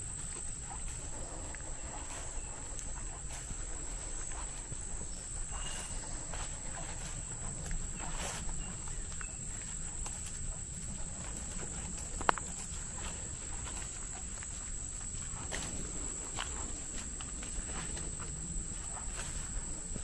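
A steady high-pitched insect drone, like crickets, runs under footsteps brushing through tall grass. A single sharp snap sounds about twelve seconds in.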